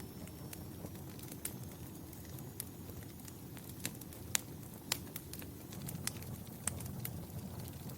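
Fireplace fire crackling: a steady low rumble of flames with sharp pops scattered irregularly through it, the loudest a little past the middle.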